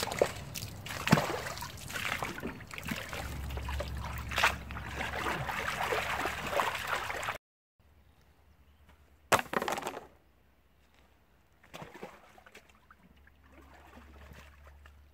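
Gravel rattling and water sloshing as a mesh classifier sieve of freshly dug pay dirt is shaken and washed in a tub of water. About seven seconds in it cuts off suddenly, and fainter water sounds follow with one brief louder noise.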